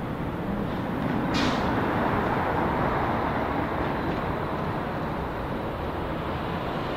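Jet aircraft engine noise at an airport, a steady rumble. About a second and a half in there is a brief hiss, and after it the noise is slightly louder.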